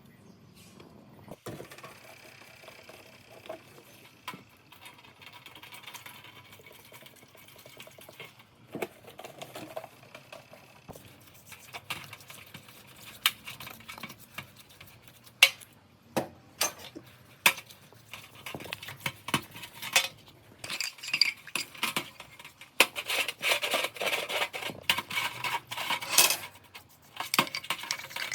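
Metal parts and hand tools clinking and knocking as they are handled, in irregular clicks that grow busier. Near the end come stretches of brisk scraping or scrubbing.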